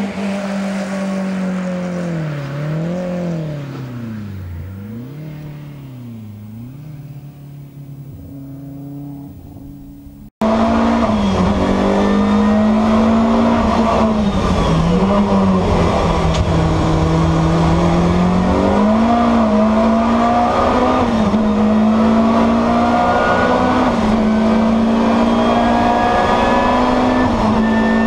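BMW M3 E30's four-cylinder racing engine revving up and down through the gears, growing fainter as the car pulls away. About ten seconds in it cuts suddenly to the engine much louder and closer, held at high revs with a few brief dips.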